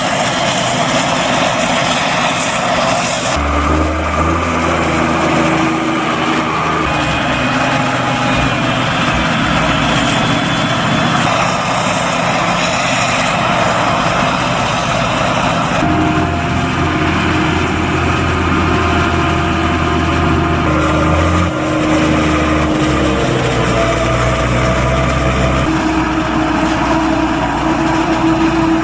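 Claas Jaguar 950 forage harvester chopping maize, its engine and chopping gear running steadily under load, with the engines of the tractors hauling forage wagons alongside. The tone of the low hum shifts abruptly a few times.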